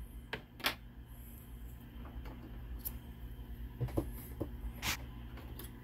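A few faint, sharp clicks and taps of small hand tools, tweezers and a small flathead screwdriver, against the plastic gauge-cluster housing and its flexible circuit, scattered over a low steady hum.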